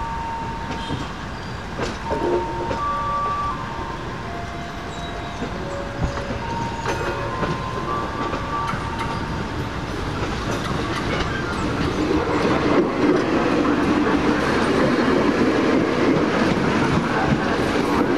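Passenger coaches rolling slowly over the yard points, their wheels giving short squeals at several different pitches. In the second half the rail noise grows louder and denser as an electric commuter train runs past close by.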